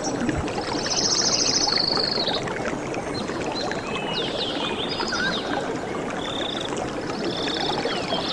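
Steady rush of flowing water, with high, rapid trilling calls and short chirps over it: a long trill about a second in, shorter ones near the end.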